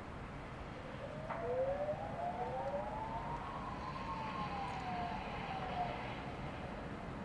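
Emergency-vehicle sirens wailing, two or more overlapping tones that slowly rise and then fall, starting about a second in and dying away near six seconds, over a steady background rumble.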